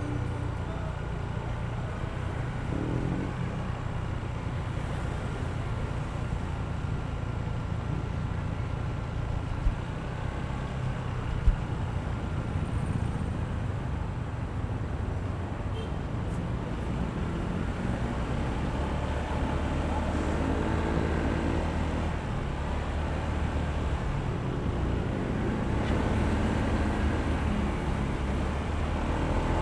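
Honda ADV160 scooter's single-cylinder engine running while riding, with road and traffic noise around it. The engine note settles lower about two-thirds of the way through, and two sharp knocks come a couple of seconds apart near the middle.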